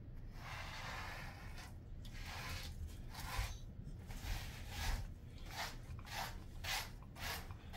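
Slicker brush strokes rasping through a Jindo dog's chest fur, then, after about five seconds, the dog licking its own belly with short wet licks about two a second.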